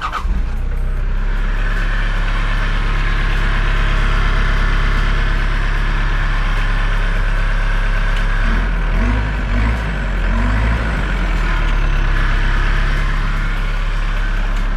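Mitsubishi Delica's diesel engine running steadily just after a start from glow-plug warm-up, which the owner thinks had air in the fuel lines. The engine note wavers briefly a little past the middle.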